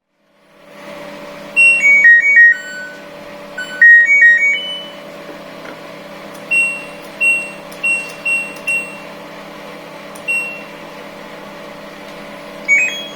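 Washing machine control panel beeping: two short electronic tunes of falling and rising notes, then single beeps like button presses, over a steady low electrical hum.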